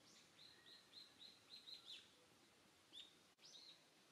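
A small bird calling faintly: a quick run of about seven short, arched chirps, then two or three more about three seconds in.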